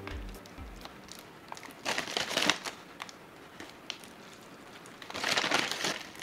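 Plastic bag of breaded chicken patties crinkling twice, about two seconds in and again near the end, as patties are pulled out of it.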